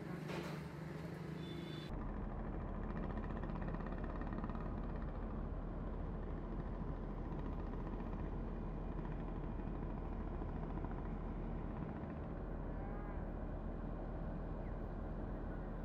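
About two seconds in, the sound changes to a steady low rumble and hiss of outdoor background noise, which runs on evenly with no distinct events.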